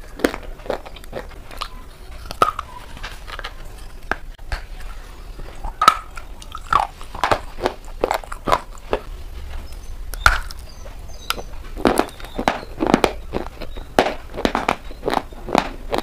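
Close-miked ASMR eating: sharp, irregular bites and crunches into a dry, crumbly white bar, with chewing in between.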